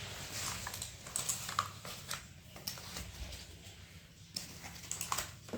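Scattered light clicks and rustles of the keyboard and its packaging being handled while it is unboxed.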